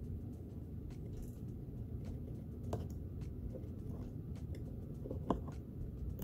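Small scattered clicks and taps of hands and tools working on an opened laptop, two of them sharper, about two and a half seconds and five seconds in, over a steady low background noise.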